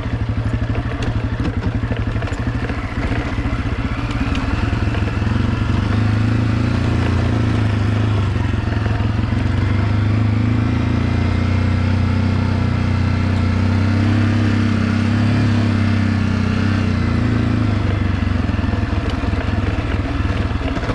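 Honda CRF250F dirt bike's 250 cc single-cylinder four-stroke engine running at low, fairly steady revs, its pitch drifting up and down a little as the bike picks its way over rocky trail, with occasional light clatter.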